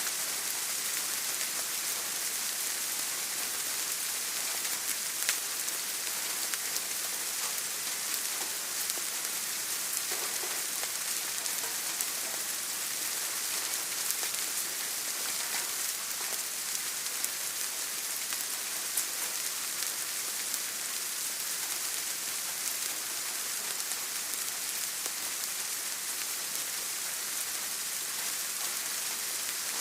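Steady rain falling, a constant hiss with scattered individual drop ticks.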